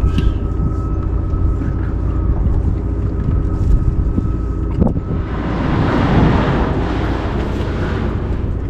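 Bass boat's outboard motor running low and steady at idle, with a faint steady higher tone above the rumble. From about five seconds in, a rush of wind on the microphone swells over it for a few seconds.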